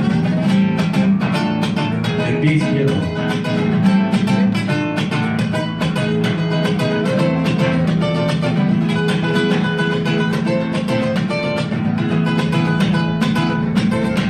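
Mariachi ensemble playing, with strummed guitars keeping a quick, steady rhythm under held melody notes.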